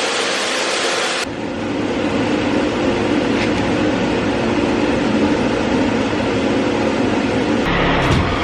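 A steady hiss that cuts off about a second in, then a truck engine running steadily with an even low hum, heard from inside the cab.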